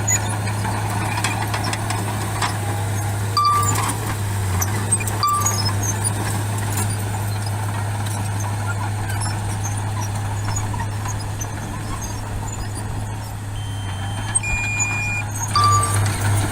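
Mini bulldozer's engine running with a steady low hum, with a few short high beeps now and then.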